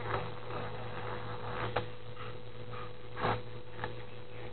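Quiet room with a steady electrical hum, a couple of small clicks, and one short baby vocal noise about three seconds in.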